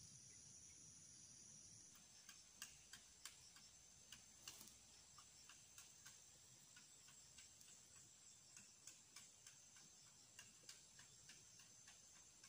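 Near silence: faint field ambience, a steady high hum for about the first two seconds, then faint irregular ticks, a few a second.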